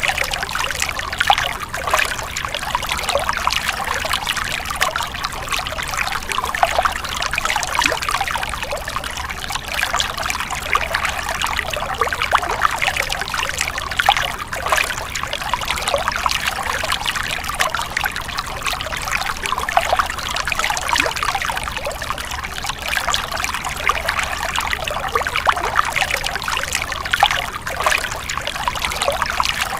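Small stream of water running and splashing over stones, a steady trickling babble full of little splashes.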